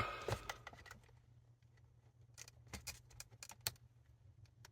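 Faint scattered clicks and small plastic taps of a cable connector on a radio circuit board being worked by hand to release it, over a low steady hum.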